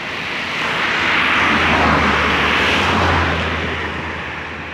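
A motor vehicle passing by on the road: its engine hum and tyre noise swell up, peak about two seconds in, then fade away.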